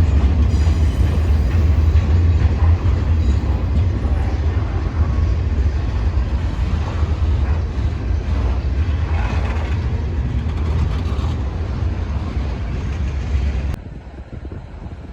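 A train running past with a heavy, steady low rumble. It cuts off suddenly near the end.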